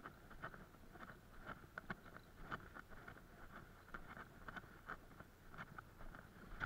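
Faint footsteps in snow at a steady walking pace, about two steps a second.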